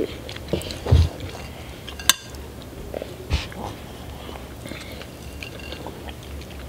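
Table eating noises: forks working in noodle cups and a plate being handled, giving scattered clicks and knocks, among them a low thump about a second in and a sharp click just after two seconds.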